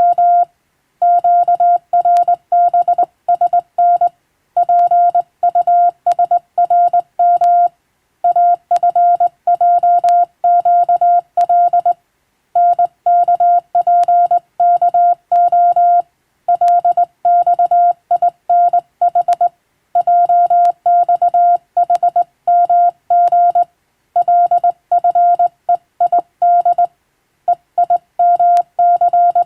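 Morse code (CW) sent as a steady single-pitched beep, keyed on and off in quick dots and dashes. The elements come in runs of about three to four seconds, each followed by a brief half-second pause between words.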